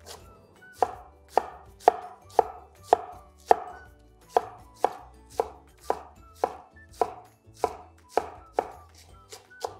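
Chef's knife slicing radicchio into julienne on a wooden cutting board: the blade knocks on the board in a steady rhythm of about two cuts a second, starting about a second in.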